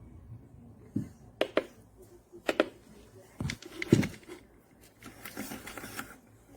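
Irregular sharp clicks and knocks, about a dozen spread over a few seconds, with a short stretch of hiss about five seconds in.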